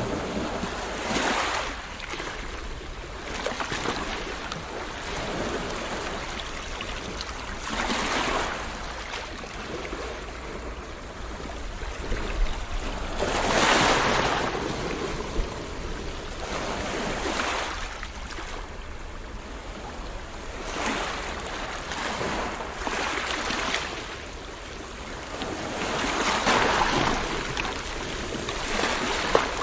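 Ocean surf: waves washing in one after another, a swell of noise rising and falling every few seconds over a steady low rumble.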